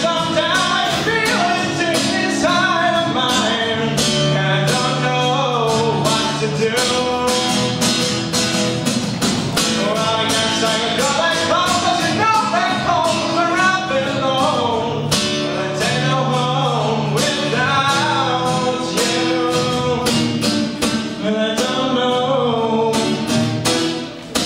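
Solo singing with a steel-string acoustic guitar strummed in a steady, busy rhythm.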